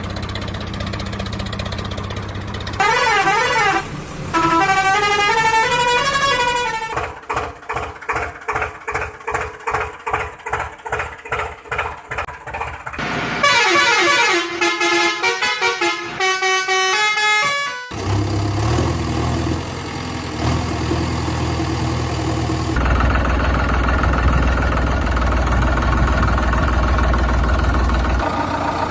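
Vehicle horns sounding in gliding, warbling tones, with a stretch of quick pulsing horn blasts in the middle. Heavy vehicle engines run before and after the horns.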